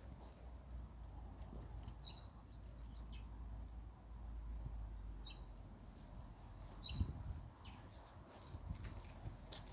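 Small birds chirping now and then: short high chirps every second or two. They sit over a faint low rumble, with a single thump about seven seconds in.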